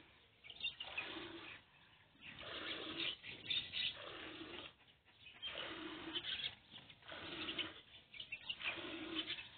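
Jets of milk hissing into a metal pot as a water buffalo is milked by hand, about one squirt a second, each ringing briefly in the pot.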